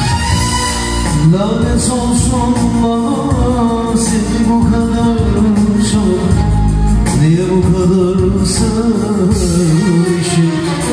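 Live arabesk music: a Korg Pa-series arranger keyboard playing its accompaniment, with a man singing long notes that slide in pitch into a microphone.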